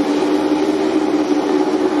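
An engine or machine running at a constant speed, a steady drone with no change in pitch.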